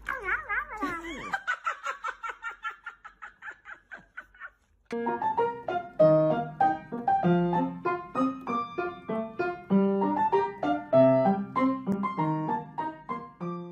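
Background piano music. A quick run of repeated high notes fades away, a short pause comes about four and a half seconds in, then a light piano tune in single notes and chords.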